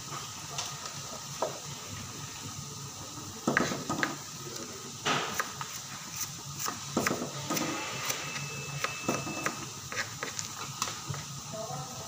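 Long metal spatula scraping and knocking against a large metal wok while shallots fry in oil, with a steady sizzle underneath and irregular clinks from the stirring.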